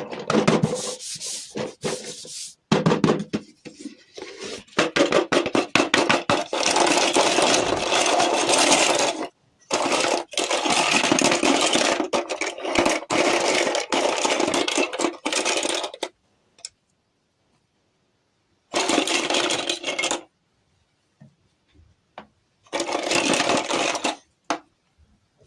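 Close-up rubbing and scraping of small objects being handled, with many small clicks, in stretches that cut off abruptly into dead silence, as from edited takes.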